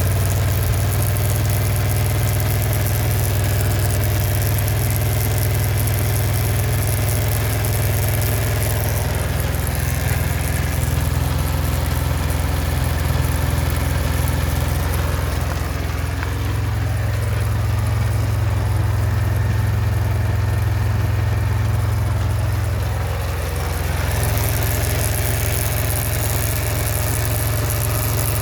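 A vehicle engine idling steadily, with an odd noise that the owner puts down to the chain. The higher part of the sound eases off for several seconds in the middle, then comes back.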